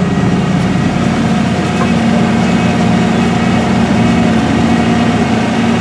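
Maserati MC12's 6.0-litre V12 idling steadily.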